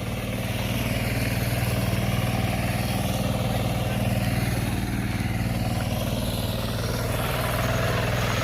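Engine of a two-wheel hand tractor (kuliglig) running steadily as it plows a field.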